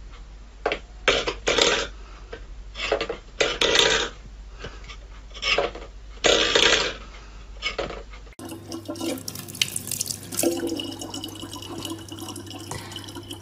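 A metal bowl clattering and knocking irregularly on the floor as a cat paws at it. About eight seconds in this gives way to a steady stream of water running from a tap into a plastic bottle.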